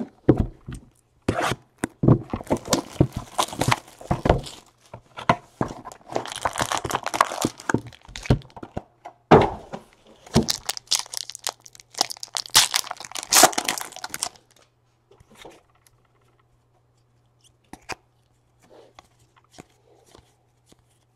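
Trading-card packaging being torn open and crinkled by hand: repeated spells of ripping and rustling for about fourteen seconds, then only a few faint light clicks as cards are handled.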